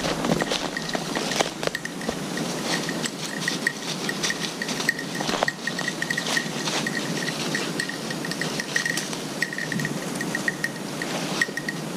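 A small bell on a hunting dog's collar tinkling at a single high pitch in irregular clusters as the dog moves, over footsteps crunching through dry leaves and snapping twigs.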